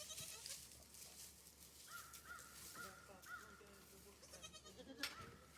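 Faint goat bleats, including a run of four short, high calls about two seconds in, with a single sharp click about five seconds in.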